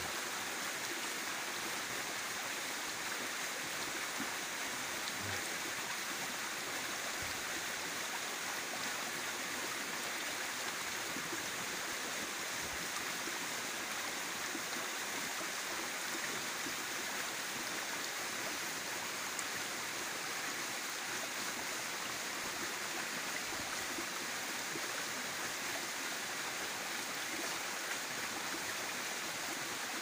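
Shallow rocky stream running, a steady rush of water.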